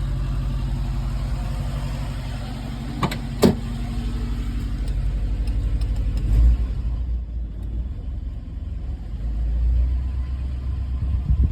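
Subaru Brumby's flat-four boxer engine idling steadily, run briefly and kept from getting hot so the oil circulates before an oil change. Two sharp clicks come about three seconds in and a thump near the middle.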